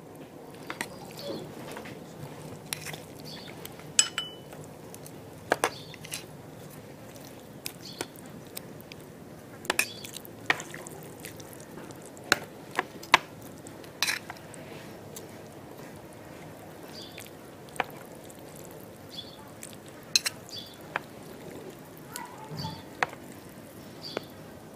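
Chopsticks and a metal fork stirring saucy instant noodles in a metal tray: sharp, irregular clinks of utensils against the tray, a second or more apart, over soft wet squelching of the noodles.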